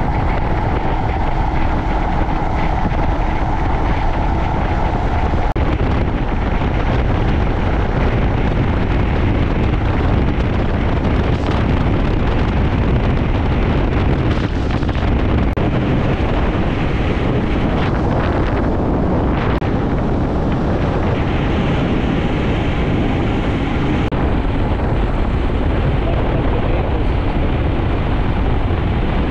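Heavy wind rush over the microphone of a Royal Enfield Himalayan motorcycle under way, with the bike's engine and road noise underneath. A faint steady hum sits on top for the first five seconds, then fades.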